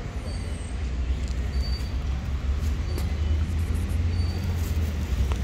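Steady low rumble of road traffic, swelling slightly partway through.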